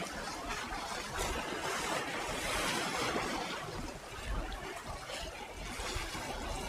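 Choppy sea water slapping and washing against the shore: a steady rushing noise.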